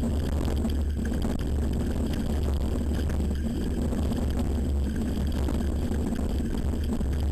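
Steady low rumble of wind buffeting and tyre rolling noise picked up by a camera mounted on a downhill mountain bike as it runs down a dirt trail.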